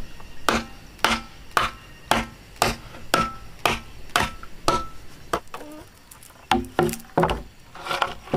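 A hand tool striking wood in steady, even blows, about two a second, some with a short ring; after a brief pause, a quicker run of three or four strikes near the end.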